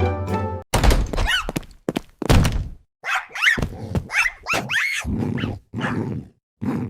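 A quick run of short cartoon sound effects: thuds and short cries that rise and fall in pitch, about two a second, following a few notes of music that stop about a second in.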